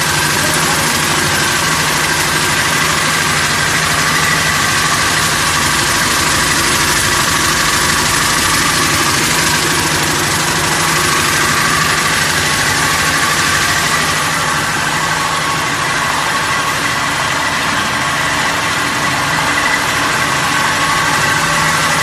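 Vibratory bowl finishing (deburring) machine running: a steady low motor hum under the continuous rattling hiss of abrasive chips churning in the bowl.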